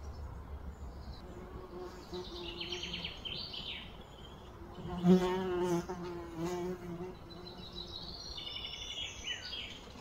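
A flying insect, such as a fly or bee, buzzing close by. The buzz swells and wavers, and is loudest about halfway through, where a few sharp clicks also sound. Birds chirp briefly about two seconds in and again near the end.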